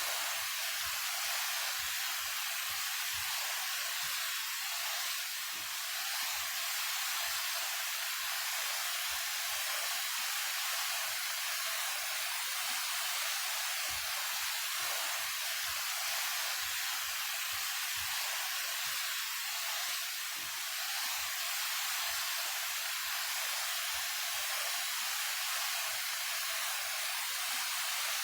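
Daehye Falls, a 28 m mountain waterfall, pouring steadily. It is a constant hissing rush of falling water with very little low rumble.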